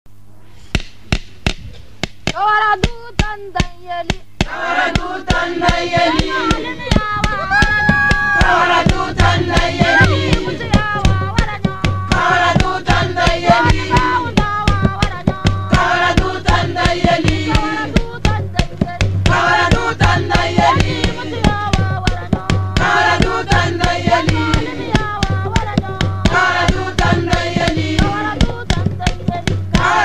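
Background music: a song with several voices singing over a steady beat. The voices come in a few seconds in, and a pulsing bass joins about nine seconds in.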